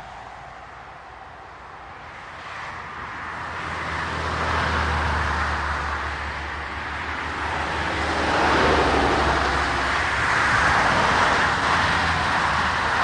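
Cars passing on an asphalt road, the tyre and engine noise swelling as each one approaches: quietest about a second in, one pass peaking about five seconds in, then a louder one building from about eight seconds in.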